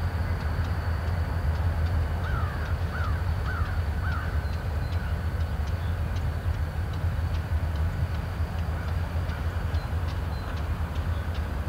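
Diesel locomotives running with a steady low rumble. A bird calls four quick times about two to four seconds in.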